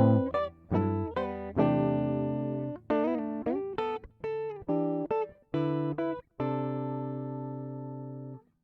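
Background music on guitar: single plucked notes and short phrases, some with slides, ending on one long held note that fades and cuts off near the end.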